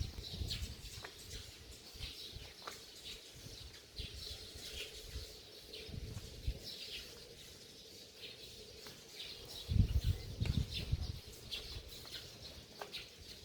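Many sparrows chirping, short high chirps scattered throughout. About ten seconds in, a low rumble lasting a second or so is the loudest sound.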